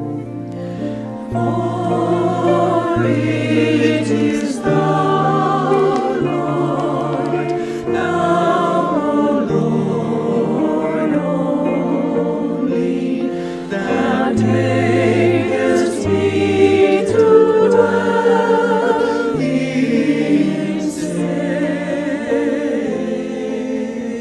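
Choir singing a hymn over instrumental accompaniment with a sustained bass line.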